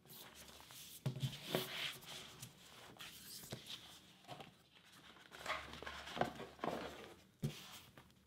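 Hands handling a hardcover book with a dust jacket: opening the cover and turning the thick endpapers. Paper and board rustle and scrape, with several short knocks.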